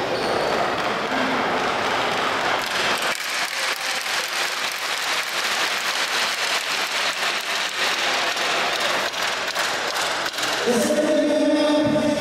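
An audience applauds, a dense patter of many hands clapping, thinning after about ten seconds. Near the end a steady held tone with a clear pitch begins.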